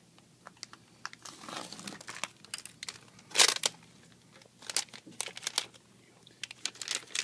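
Crinkling and tearing rustles with light clicks as iPad 3 screen parts and their film or adhesive are handled, the loudest rustle about three and a half seconds in.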